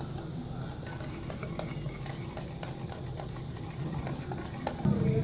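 A hand whisk stirring flour into beaten eggs and sugar in a bowl, with quick, irregular clicks and scrapes of metal against the bowl. A louder, low steady sound comes in just before the end.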